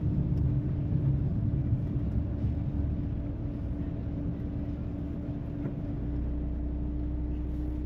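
Car on the move, heard from inside the cabin: a steady low engine and road rumble with a constant hum, smoothing into an even drone about six seconds in.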